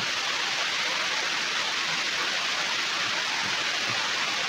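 Steady hiss of background noise.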